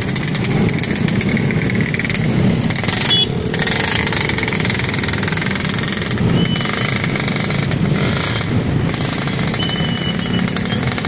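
Many small motorcycle engines running together as a crowd of riders moves slowly along the road. A few short high-pitched beeps sound over them.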